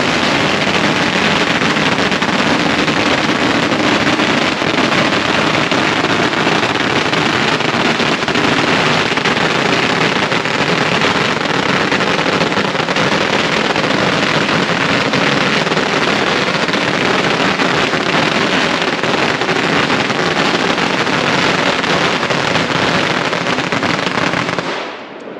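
A long string of red paper firecrackers going off in a continuous, dense crackle of rapid bangs, stopping abruptly near the end.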